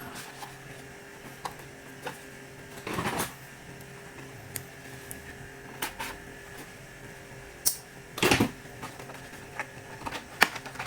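Small parts of an opened laptop being handled: scattered light clicks and taps of plastic and metal, with two louder scraping rustles, about three seconds in and about eight seconds in. A faint steady hum runs underneath.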